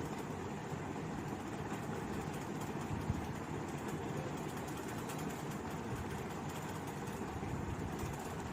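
Steady low rumble of background noise with no clear pitch, and one faint click about three seconds in.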